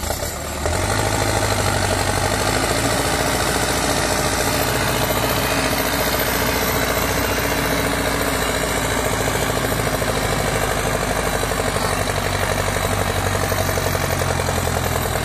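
Farm tractor's diesel engine running hard under heavy load in a tractor tug-of-war, its rear wheels spinning. It comes in loud about a second in and holds steady.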